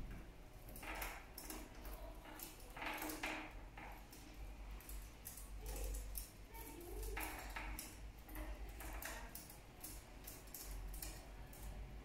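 Light clicks and taps from two lovebirds' beaks and feet on a plastic cage ledge, with a few short dry rustles from the oat stalk they are nibbling and tugging.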